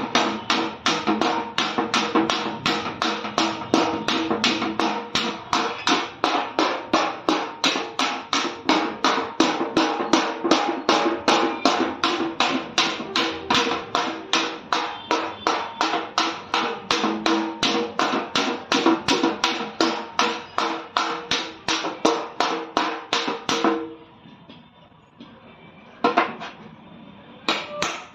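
Small hammer striking a car's sheet-metal front fender in quick, even blows, about four a second, the panel ringing with each strike. The hammering pauses about 24 seconds in, two lone strikes follow, and it resumes near the end.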